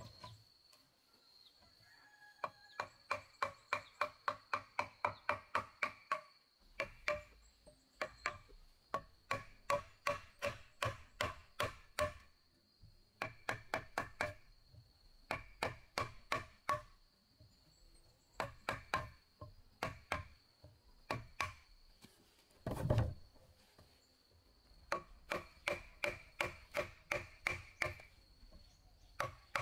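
A hatchet and chisel chipping at the end of a squared wooden beam: quick runs of sharp taps, about four a second, each with a short metallic ring, broken by short pauses. One heavier thud comes a little past two-thirds of the way through.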